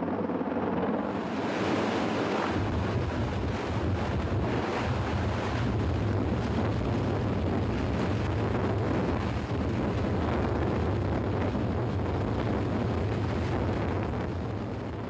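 Mi-26 heavy-lift helicopter hovering low overhead while lowering an underslung load: a loud, steady rush of rotor noise with downwash buffeting the microphone, the low rumble growing heavier a couple of seconds in.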